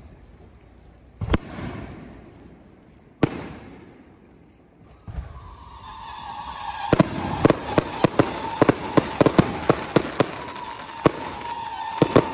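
Aerial fireworks going off: two single booms, each trailing off, then a dense run of rapid bangs and crackles over a steady whistling tone.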